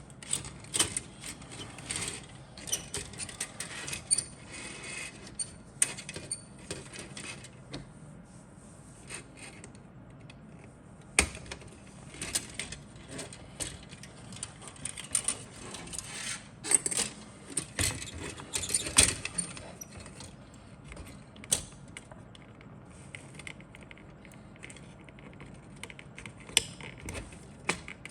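Plastic model kit parts and sprues being handled, with irregular clicking, light rattling and rustling of plastic and a few sharper clacks.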